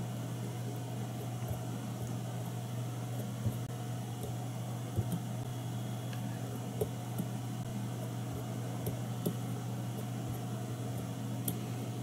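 Steady low machine hum with a few faint, scattered clicks.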